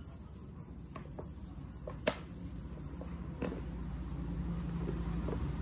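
Light clicks, taps and rustles of books being handled and wiped, with one sharper tap about two seconds in. A low steady hum grows louder from a little past halfway.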